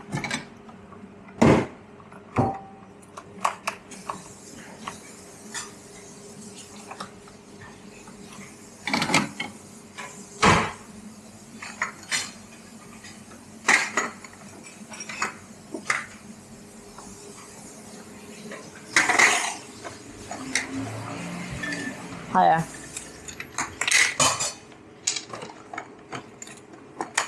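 Crockery and cutlery clinking and knocking as a barista works the counter: cups, saucers and spoons set down and handled in irregular sharp clinks, over a low steady machine hum.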